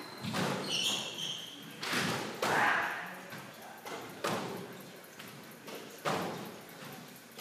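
Squash ball struck and rebounding off the court walls and floor: several sharp, echoing hits about every two seconds. A short squeak of court shoes on the wooden floor about a second in.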